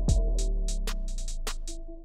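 Background electronic music with a steady beat: a deep kick drum at the start, short sharp strokes several times a second, and held notes underneath.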